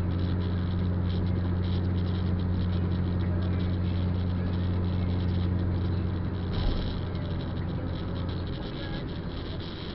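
Car cabin noise while driving on a wet road: a steady low engine hum under an even hiss of tyres and road. A brief louder rush comes about six and a half seconds in, and the low hum eases off near the end.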